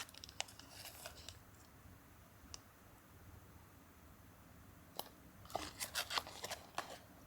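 Faint crinkling, tearing and clicking of plastic food packaging being handled and opened, in bursts: a cluster near the start, a single tick in the middle, and a denser cluster from about five to seven seconds in.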